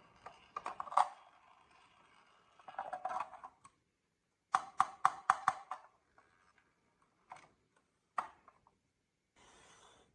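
Marbles rolling and clattering down a marble run: scattered sharp clicks and short rattles, with a quick run of about six clicks in a row about halfway through.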